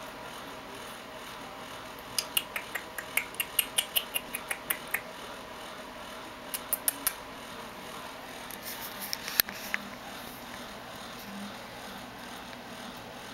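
Japanese Chin puppies feeding at a bowl of dry kibble: a run of quick sharp clicks and crunches, about four a second, starting about two seconds in, then a few more shortly after and a last cluster that holds the loudest click.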